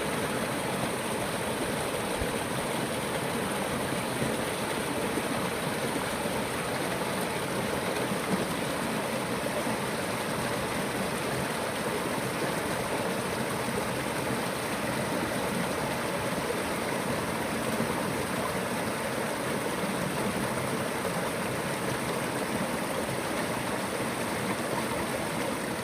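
Stream water rushing steadily, an even unbroken noise.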